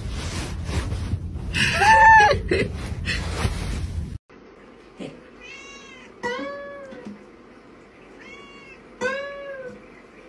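Fabric rustling with one loud meow about two seconds in. Then, after a sudden cut, a cat meows four times, in two pairs of short rising-and-falling calls.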